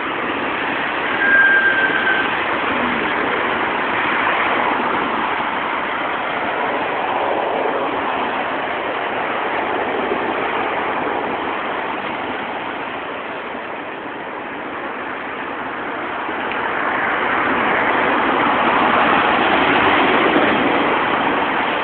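Busy city street traffic: cars driving past in a steady wash of tyre and engine noise that swells as vehicles go by, loudest near the end. A short, steady high-pitched tone sounds once, about a second in.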